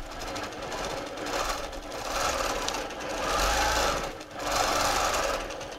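Longarm quilting machine stitching, its speed rising and easing three times, then stopping just before the end.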